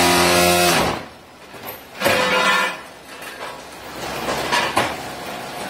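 Automatic brick-making machine line running: a steady mechanical hum cuts off sharply about a second in, followed by scattered metallic clanks and knocks from its steel frame and conveyors, the loudest about two seconds in.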